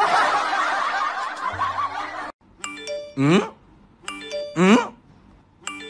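Laughter, probably a laugh track, for the first two seconds, cutting off suddenly. After it comes a looping music jingle of chime-like held notes, each time with a sliding tone that falls from high to low, repeating about every second and a half.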